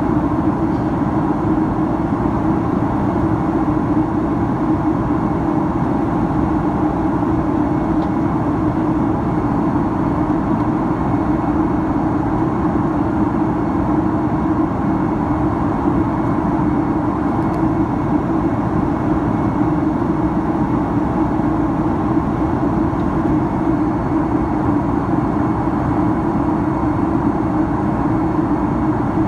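Steady cabin noise of a Boeing 767-300ER in flight, heard from a window seat: turbofan engine noise and rushing air blend into one even drone with a low hum in it.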